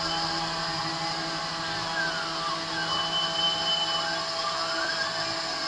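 CNC 3040 desktop router milling aluminium plate: a steady high spindle whine with the end mill cutting, while the stepper motors' tones glide up and down in pitch as the axes trace a curve.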